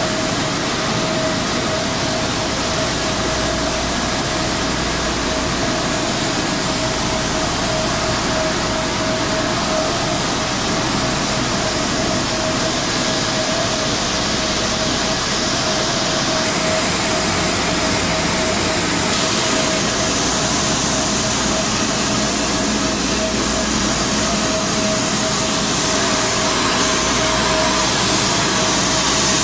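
Pet food production line machinery running: a loud, steady wash of machine noise with one constant mid-pitched whine.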